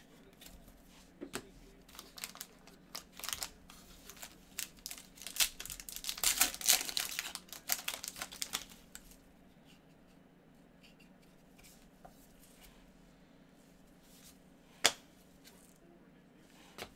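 A trading card pack wrapper being torn open and crinkled by hand, a dense crackling rip that is loudest about halfway through, then stops. A single sharp click near the end.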